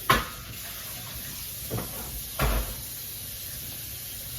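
Three knocks of household things being handled and put away while tidying up: a sharp one right at the start and two softer ones about two seconds in.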